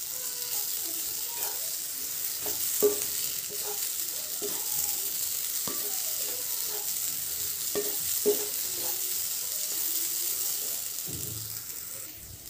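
Wooden spatula stirring and scraping a mung dal and spice filling frying in a non-stick kadai: a steady sizzle of the frying mixture, with scattered knocks of the spatula against the pan, the loudest two about three seconds in and about eight seconds in. The sizzle fades near the end.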